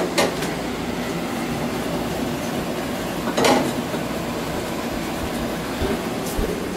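Hot grease sizzling and crackling steadily in a frying pan, over a low steady hum. There is a brief louder sound just after the start and another about three and a half seconds in.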